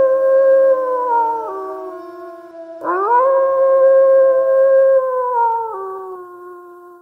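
Wolves howling: a long, steady howl drops in pitch and fades about a second and a half in, then a new howl rises about three seconds in, holds, and falls away in steps near the end.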